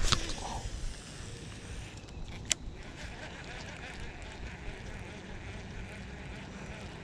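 Fishing rod and reel in use: a cast with a sharp click at the start, another sharp click about two and a half seconds in, then the reel being cranked steadily with wind on the microphone.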